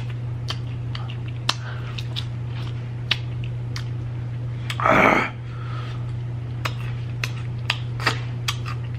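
Close-up chewing of crunchy fried chicken: irregular sharp crackles and mouth clicks, with one louder, longer sound about five seconds in. A steady low hum runs underneath, from a clothes dryer running.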